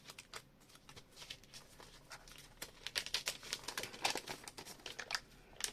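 Protective plastic wrap on a new tablet being peeled off and handled, a run of quick, irregular crinkles and crackles that gets busier about halfway through.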